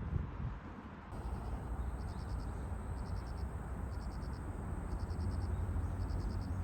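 An insect chirping: short trills of a few quick pulses, about once a second, starting about a second in, over a steady low rumble.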